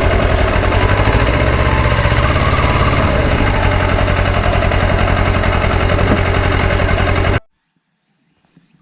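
Kawasaki Ninja 400 parallel-twin engine running steadily with an even, fast pulsing, then cutting off abruptly about seven seconds in, leaving near silence.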